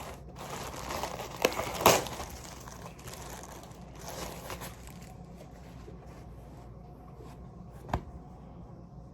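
Packaging crinkling and rustling as a t-shirt is unwrapped and handled, with a couple of sharp clicks in the first two seconds. It quietens after about five seconds, and a single short knock comes near the end.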